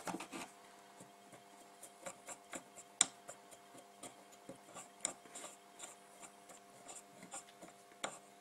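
Cotton bud wet with acetone rubbed and scrubbed over a circuit board, cleaning off leaked capacitor residue and corrosion: faint scratching and rubbing with scattered small clicks, a sharper click about three seconds in, over a faint steady hum.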